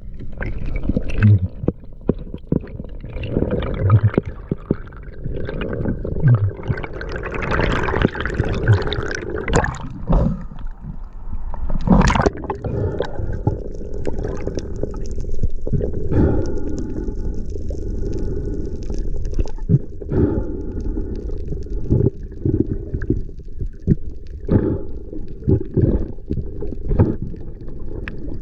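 Underwater ambience heard through a diving camera's housing: water gurgling and sloshing over a low rumble, with irregular knocks and clicks from the spearfisher's movements and gear, the sharpest about twelve seconds in.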